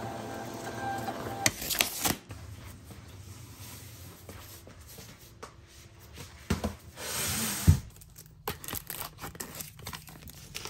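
A desktop printer runs for about a second and a half and stops with a few knocks. Later a stack of flat cardboard shipping boxes slides off a shelf and lands with a thump, followed by light clicking and rustling of paper and envelopes being handled.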